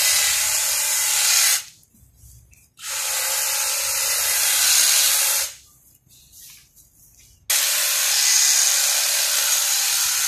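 A Makita electric hedge trimmer runs as its blades cut through a bush. It is switched off twice for a second or two, going quiet each time, then starts again, the second time sharply, a little over two-thirds of the way through.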